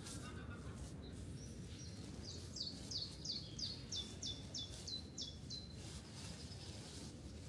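A songbird singing a run of about ten quick down-slurred whistled notes, about three a second, starting some two seconds in, over a steady low rush of woodland ambience.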